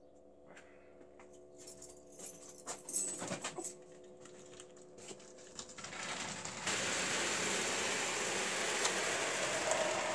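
Model railway running on a layout: scattered clicks over a faint steady hum, then from about two-thirds of the way in a sudden, louder, steady running noise as a train of tank wagons moves close by on the track.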